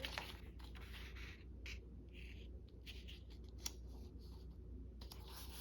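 Faint sounds of paper being worked by hand at a craft table: light rustles and a few soft scattered clicks over a low steady hum.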